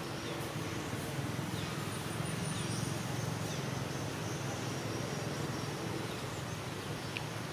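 Outdoor forest ambience: a steady low rumble with a faint haze of background noise and a few brief, faint high chirps.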